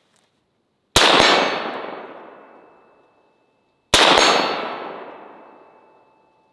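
Two rifle shots from an AR-15 with a 36-inch barrel, about three seconds apart, each a sharp crack followed by a long ringing decay with held metallic tones, the sound of a steel target being hit and ringing.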